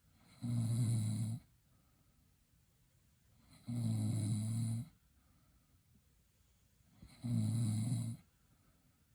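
A woman snoring: three low-pitched snores, each about a second long, coming about every three and a half seconds with quiet breaths between.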